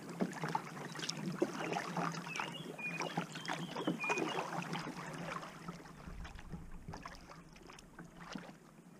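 Kayak paddle strokes, water splashing and dripping off the blades, thinning out about halfway through. A few short high chirps are heard between strokes near the middle.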